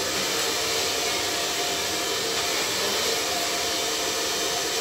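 Handheld hair dryer blowing steadily while drying long hair.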